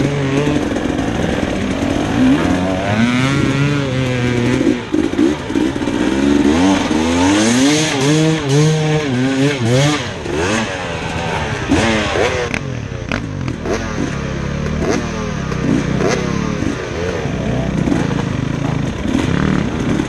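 Dirt bike engine revving up and down as it rides a rough trail. About halfway through, water splashes as the bike ploughs through a stream crossing.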